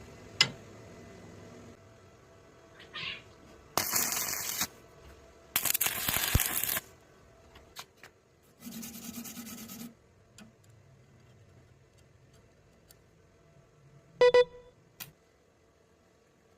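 Electric arc welding: three crackling bursts of about a second each as the arc is struck and held, the third with a low hum under it. A sharp metallic clink rings briefly near the end.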